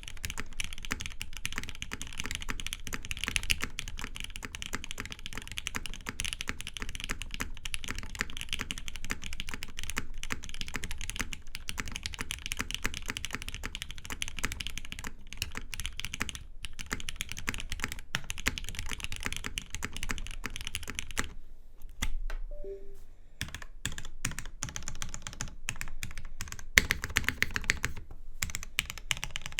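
Typing on a TGR 910 RE custom mechanical keyboard with lubed Cherry MX Black Hyperglide linear switches, a polycarbonate case and plate, and GMK keycaps. The keys are struck in a fast, continuous stream of clacks, which stops for about two seconds roughly two-thirds of the way in and then resumes.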